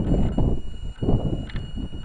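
Onboard sound of a 4x4 RC car driving over rough ground: an uneven low rumble broken by knocks and jolts as the chassis and plastic body shell bounce.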